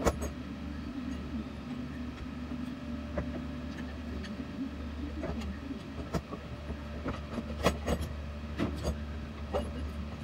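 Scattered metallic clicks and knocks as a Harken roller furling drum assembly is handled and turned over in the hands, over a steady low hum.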